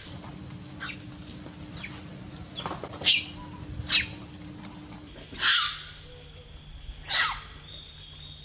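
Baby monkey crying: six short high-pitched squeals a second or so apart, each falling in pitch, with the loudest about three seconds in.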